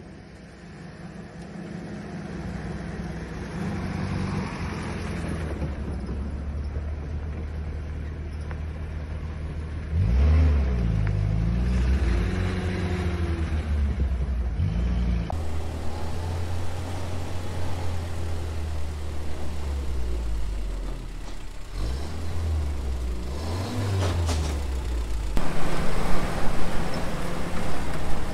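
Willys flatfender Jeep engine running on a trail, revving up and down twice, around ten seconds in and again after twenty, and getting louder near the end.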